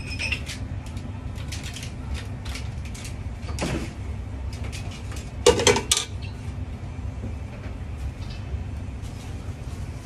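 Metal ladle knocking and scraping against a stainless-steel chinois while straining a vegetable court-bouillon, with scattered clinks of metal and a louder metal clatter about five and a half seconds in as the strainer is taken off the pot. A steady low hum runs underneath.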